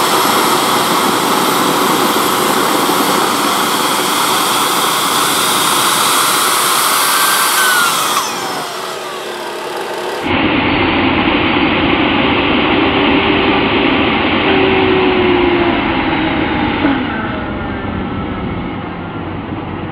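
Homemade turbojet engine built from a small turbocharger, run at full fuel: a loud, steady rushing noise with a turbine whine. A whistle falls in pitch near 8 s as the sound drops, then it is loud again after about 10 s with a lower whine that rises slightly and falls away near 17 s. This is the run in which the gases got too hot and melted the turbine wheel.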